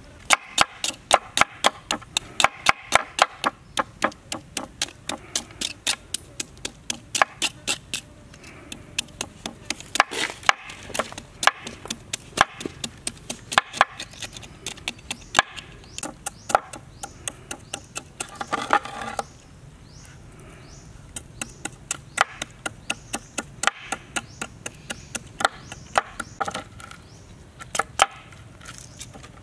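Kitchen knife scraping the scales off a fish head on a wooden cutting board, in quick repeated strokes about three a second, with a short break about two-thirds of the way through.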